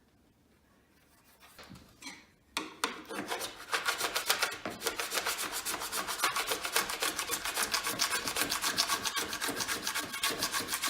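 A scraper drawn quickly and rhythmically across a snowboard's base, shaving off the excess hardened P-tex filler. It starts with a few light strokes and becomes fast, steady scraping about two and a half seconds in.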